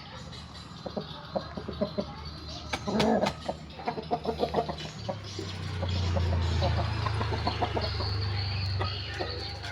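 Bangkok chickens clucking, with many short ticks and a louder call about three seconds in. A low steady drone comes in about halfway and holds.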